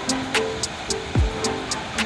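Background music with a steady beat: plucked string notes over a kick drum and hi-hat.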